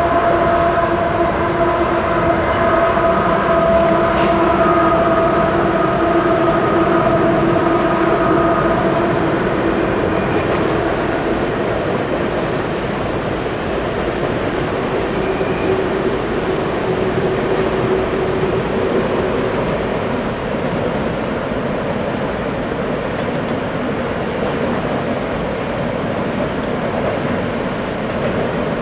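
Canadian Pacific coal train rolling past with a steady rumble of wheels on rail. A held, multi-note tone sounds over the first nine seconds or so, then fades.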